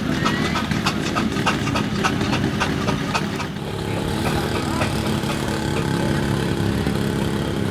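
An engine running steadily with a low hum, with quick clicks about four a second over the first three and a half seconds.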